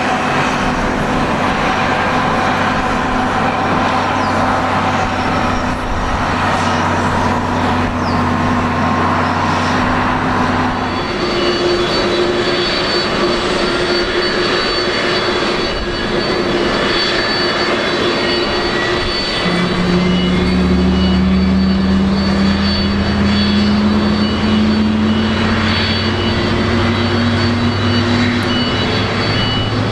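Boeing 767-300 airliner's jet engines running, a steady hum and whine. The tones shift about a third of the way in, and about two-thirds in the engines grow louder with a slowly rising pitch.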